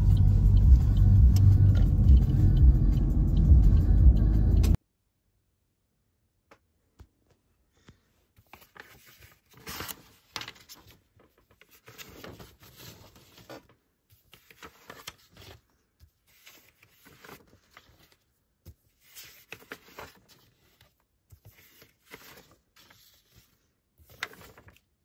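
Low road rumble inside a moving car for about five seconds, cutting off suddenly. Then faint, intermittent rustling of paper sheets being turned over and handled on a desk.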